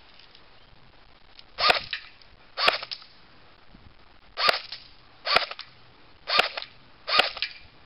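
Electric airsoft MP5 firing single shots on semi-automatic: six sharp cracks, roughly a second apart, the first under two seconds in.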